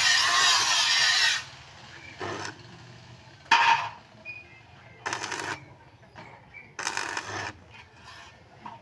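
A power tool cutting with a high, even noise stops about a second and a half in. After that come several short, separate knocks and scrapes of material being handled.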